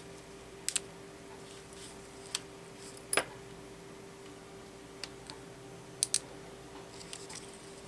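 Small sharp plastic clicks and snaps as a precision screwdriver pries the plastic retainer clip off the back of a laptop keycap; scattered single and paired clicks, the loudest about three seconds in.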